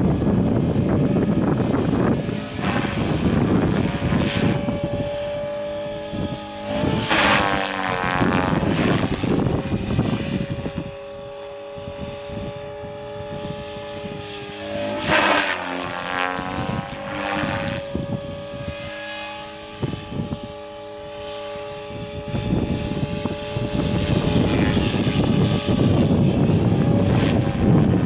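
Align T-Rex 500 electric RC helicopter flying overhead: a steady whine from its motor and rotors, sweeping up and down in pitch about seven seconds in and again about fifteen seconds in as it manoeuvres. Wind buffets the microphone with a low rumble at the start and over the last few seconds.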